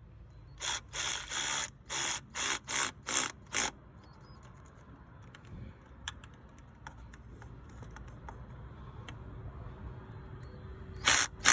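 Shield Pro cordless ratchet run in short bursts, about seven in the first four seconds and two more near the end, tightening the bolts of a thermostat housing.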